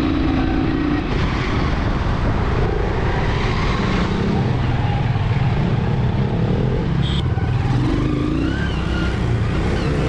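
Motorcycle engine running steadily while riding in traffic, with wind rushing over the microphone.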